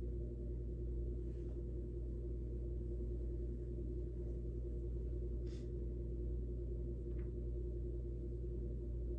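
A steady low hum made of several held tones, unchanging throughout, with a few faint ticks.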